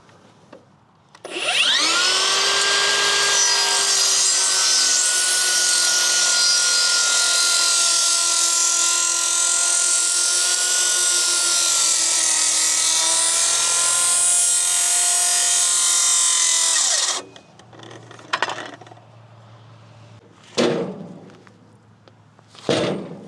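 Makita beam saw, a large circular saw, starts up about a second in and cuts through pine for around fifteen seconds, its whine sagging slightly under load, then shuts off and winds down. Three separate knocks follow.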